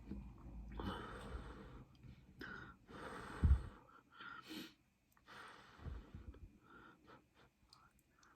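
A person eating and breathing close to the microphone: several short breathy sounds, with a low bump about three and a half seconds in and a smaller one near six seconds.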